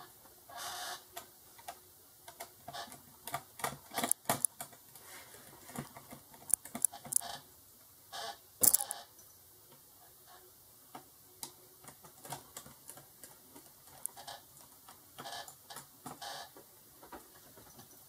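Irregular light clicks and taps of a small screwdriver and screws on a laptop's plastic bottom case as screws are taken out, with one sharper click about halfway through.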